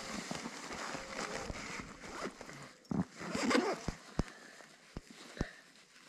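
Rustling of a nylon snowmobile suit and gloves as the gloves are pulled on and adjusted, with a louder rustle about three seconds in and a few short, sharp taps near the end.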